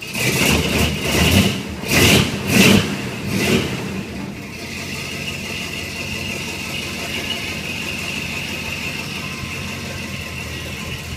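Chevrolet 350 small-block V8, bored .060 over with headers and Flowmaster exhaust, heard from inside the cab: a few quick revs in the first four seconds, then a steady idle once warmed up.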